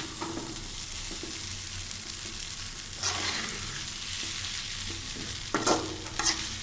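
Masala Maggi noodles frying in oil in a pan with a steady sizzle, stirred with a spoon. Near the end come several sharp scrapes of the spoon against the pan.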